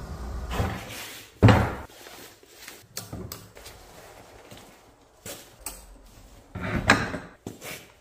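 A vehicle engine rumbles low at first and fades out in the first couple of seconds. Then come knocks and clicks of a scrap wooden board and ratchet straps being handled against a Jeep's front bumper, with two loud thumps, one about a second and a half in and one near the end.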